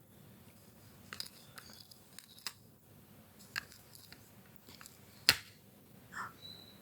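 Light scattered clicks and snips of handwork clearing tangled hair and threads from a mini washing machine's turbine, with one sharper click a little past halfway.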